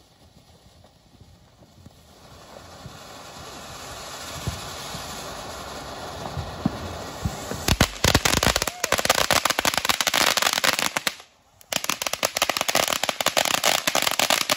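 TNT Magic Seashell ground fountain firework burning. A spraying hiss builds over the first few seconds, then turns into dense crackling about halfway through. The crackling breaks off briefly a few seconds later and starts again.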